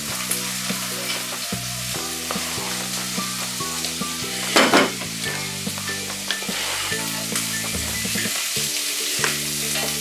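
Onion, garlic and bay leaf frying in olive oil in a pot: a steady sizzle with small crackles, as red paprika lard (manteca roja) is scraped in and stirred with a wooden spoon. A brief louder sound stands out about halfway through.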